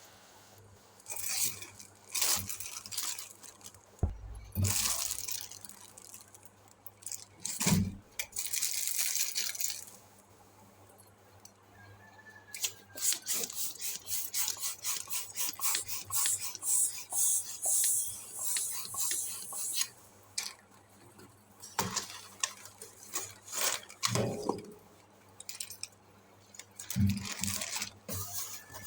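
Balloons and their packaging being handled: irregular rustling, rubbing and clicking, with a couple of dull thumps in the first third.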